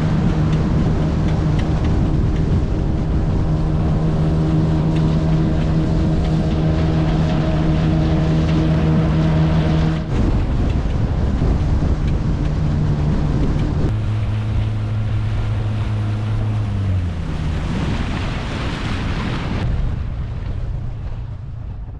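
Boat motor running steadily at speed, with wind on the microphone and rushing water. About two-thirds of the way through it is throttled back: the engine pitch drops, then falls away, leaving wind and water noise.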